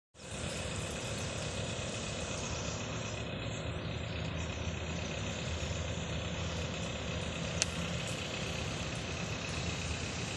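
Steady low rumble of motor traffic, with one sharp click about seven and a half seconds in.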